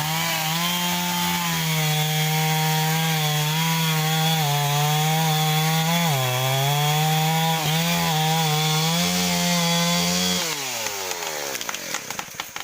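Stihl 038 two-stroke chainsaw held at full throttle while cutting wood. It dips in pitch briefly about six seconds in as the chain loads up, recovers, then drops off toward idle about ten seconds in, followed by a few sharp clicks.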